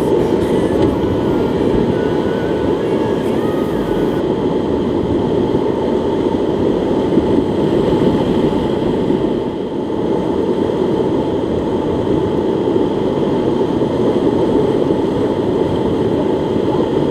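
Steady, loud rushing of river rapids with no break.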